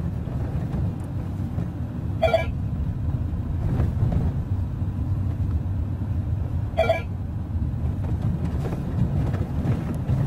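Steady low engine and road rumble heard from inside a shuttle van driving through city traffic, with two brief high toots about two and seven seconds in.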